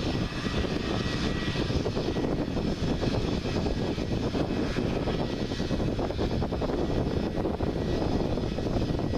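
Airbus A320neo's CFM LEAP-1A turbofan engines running as the jet rolls along the runway: a steady, broad rumble with a faint high whine in the first couple of seconds.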